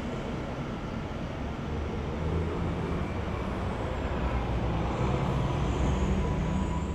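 City street traffic: a bus and cars driving past with a steady low engine and tyre rumble that swells a little about five seconds in.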